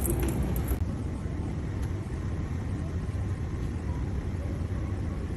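Steady low rumble and hiss inside an airliner cabin. A few light clicks come in the first second.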